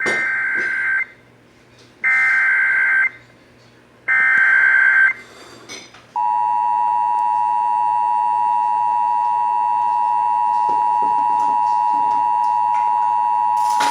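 Emergency Alert System broadcast tones for a severe thunderstorm warning. First come three one-second bursts of high, buzzy SAME data tones, about a second apart. About six seconds in, the steady two-tone attention signal (853 and 960 Hz) starts.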